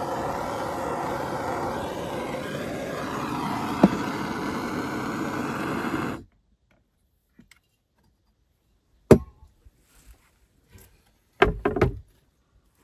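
Handheld gas torch on a canister blowing a steady flame at wooden planks, scorching them; it cuts off suddenly about six seconds in. Then a few sharp wooden knocks as a board shutter is handled.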